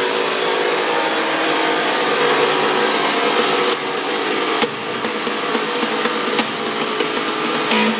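Industrial metal-cutting saw machine running with a steady motor hum, with a string of sharp clicks and knocks through the second half.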